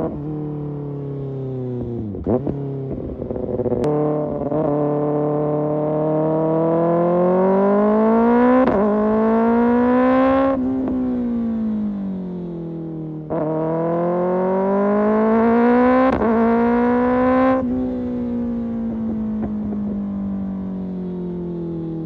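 Kawasaki ZX-6R inline-four with an Arrow Pro Race exhaust, heard on board as the bike accelerates hard twice. Each time the engine note climbs steeply, with brief breaks along the way, then falls away as the throttle closes. Near the start there is a quick dip and blip in the note.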